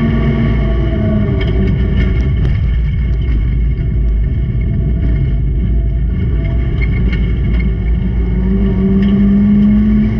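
Racing car engine running hard under a heavy rumble, its note held strongly near the start, dropping back in the middle and rising again near the end, with a few sharp knocks and rattles along the way.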